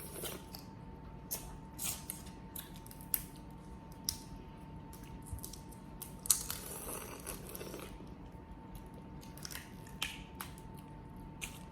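Boiled crawfish being eaten: scattered small cracks and clicks of shells being broken and peeled, with a louder, longer crackle about six seconds in.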